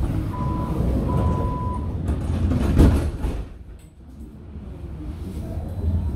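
Athens Metro Line 1 train's door-closing warning: a steady high beep sounds twice, then the sliding doors bang shut with one loud knock about three seconds in. After a brief lull a low rumble builds as the train gets ready to pull out.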